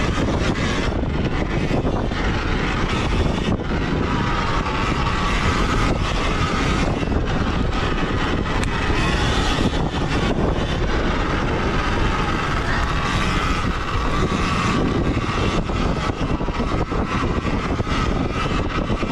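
Surron Ultra Bee electric dirt bike ridden hard over dirt: a thin electric motor whine that rises and falls with the throttle, under constant wind and road rush on the camera's microphone.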